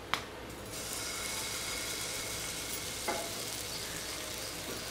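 Semolina and curd uttapam batter sizzling steadily as it lands in hot oil on a nonstick pan. A brief click comes just before the sizzle starts, under a second in.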